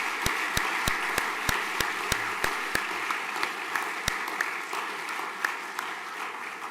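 Audience applause: many people clapping, with a few close, sharp claps standing out at about three a second, thinning and fading out near the end.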